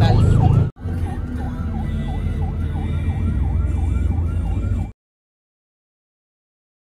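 Ambulance siren wailing rapidly up and down, about three sweeps a second, heard from inside the ambulance over its engine and road rumble. It breaks off briefly a little under a second in, then cuts off suddenly about five seconds in.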